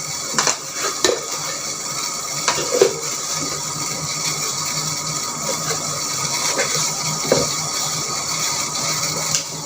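Pan of water with ground masala spice heating on the stove and coming to the boil: a steady hiss with a few faint clicks.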